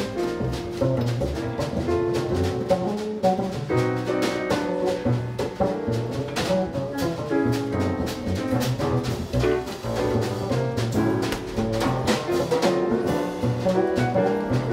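A small jazz ensemble playing live: alto saxophone, piano, double bass and drum kit with frequent cymbal strokes, heard from the back of a large room.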